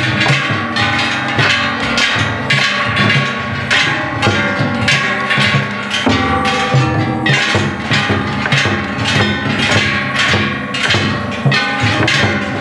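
Shishimai lion-dance music: several brass hand gongs (kane) struck in a fast, steady clanging rhythm, with a taiko drum beating underneath.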